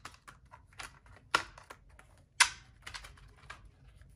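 Paper bills and cash envelopes being handled: a quick, irregular run of light clicks and paper snaps, with two sharper snaps about one and a half and two and a half seconds in.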